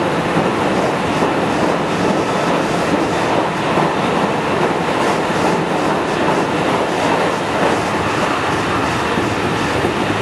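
JR West 207 series electric commuter train running between stations, heard from inside the passenger car: a steady rumble of wheels on rail with light, repeated clicks.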